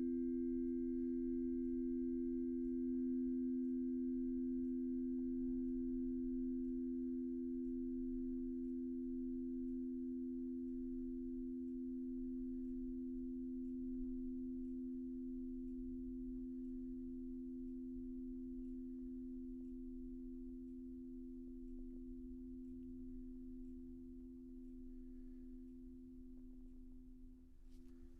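Two tuning forks ringing together as a steady two-note chord, fading slowly, then damped to silence just before the end.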